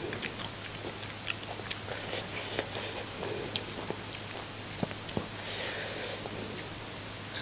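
A person chewing crunchy food close to the microphone, with scattered small crunches and mouth clicks.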